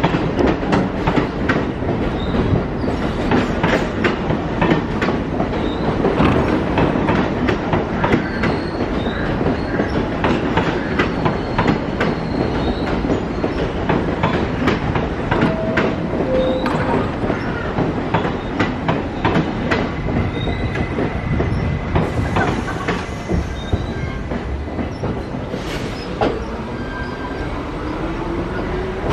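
R68 subway train departing past the platform: a fast, steady clatter of wheels over rail joints with brief wheel squeals. Near the end the train draws away a little quieter, with a whine rising in pitch as it gathers speed.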